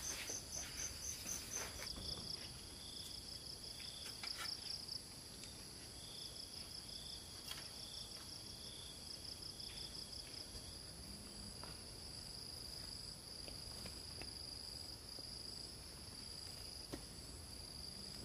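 Crickets chirping in rapid pulsed trills, several at once at different pitches. One stops about two seconds in and a lower one about ten seconds in, leaving a single steady trill. A few faint clicks come in the first half.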